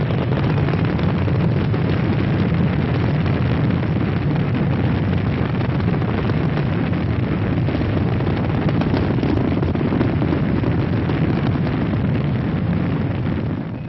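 Space Shuttle Challenger's two solid rocket boosters and three main engines during ascent: a loud, steady, deep rocket roar.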